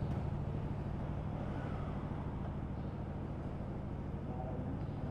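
Steady low mechanical hum, holding a few constant low tones, from the motorcycle brake-and-wheel test equipment and the bike on it.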